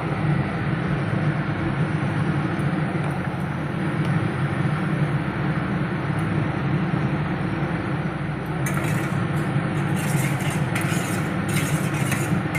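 A spatula stirring and scraping a spice paste in a steel bowl, starting about nine seconds in, as a series of quick scrapes and clinks. A steady low rumble runs underneath throughout.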